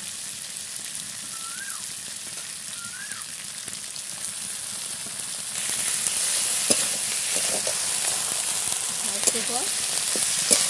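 Spices and vegetables sizzling in an oiled kadai as fresh kulekhara greens go in on top; the sizzle gets louder about halfway through as the greens are stirred in, with a few sharp knocks of the spatula against the pan near the end.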